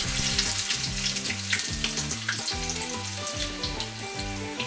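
Oil sizzling and crackling around small floured cardinalfish (ishimochi) deep-frying as karaage in a pan, the pieces being lifted out with chopsticks. The sizzle has turned high-pitched, the sign that the fish is done. Background music with a steady bass line plays underneath.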